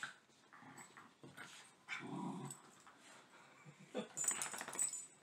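Miniature schnauzers growling in play as they wrestle over a plush toy: a few short growls, the longest about two seconds in, with a short burst of rustling scuffle about four seconds in.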